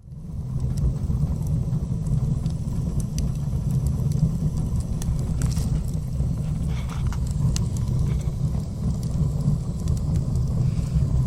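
Steady low rumble of a running motor vehicle, rising quickly out of silence at the start, with faint scattered clicks above it.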